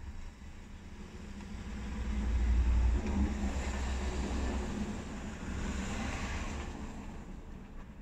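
A car passing by: a low engine rumble and tyre noise swell over the first few seconds, then fade away near the end.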